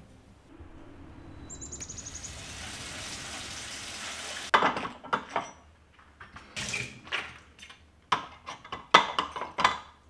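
Water running for about four and a half seconds, then a run of sharp knocks and clinks as washed glasses and plates are set into a bamboo dish rack.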